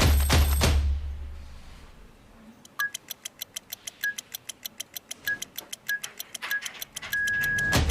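Background music with a fast, even ticking beat. Over it come five short beeps of one pitch at uneven intervals, then one longer beep near the end, like keys being pressed on a doorbell keypad followed by a confirmation tone.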